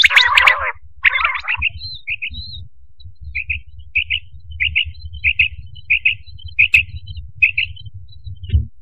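Quail calling: short, high double notes repeated roughly every two-thirds of a second over a low hum. A loud, dense burst of sound fills the first second.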